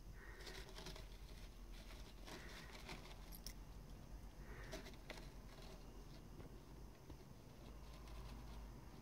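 Faint, irregular scratching and rustling of a kitten's claws and paws on the sisal rope of a cat-tree post, busiest in the first few seconds and again about five seconds in.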